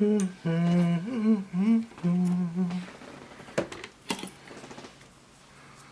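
A person humming a tune with held, wavering notes for about three seconds, then two sharp clicks a half second apart.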